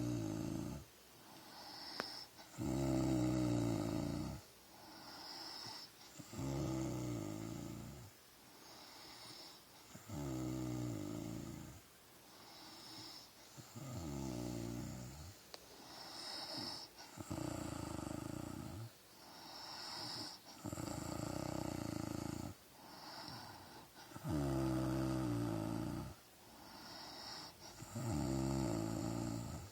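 A sleeping woman snoring in a steady rhythm, about one snore every three and a half seconds. Each loud, rattling snore is followed by a softer, hissing breath.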